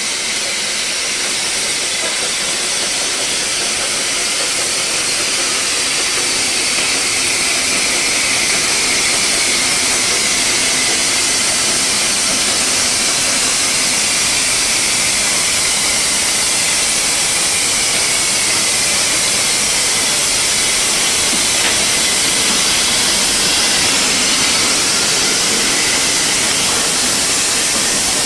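Narrow-gauge steam locomotive hissing steadily with escaping steam, a loud continuous hiss that grows a little louder over the first several seconds as the engine draws close.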